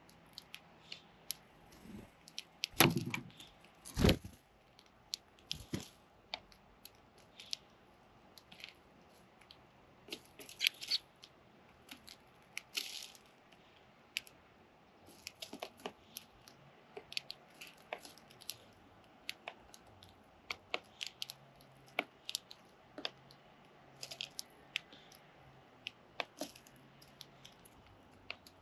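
Sparrow chicks pecking and moving about: irregular sharp taps and clicks, dozens of them, the loudest two about three and four seconds in, with hardly any calling.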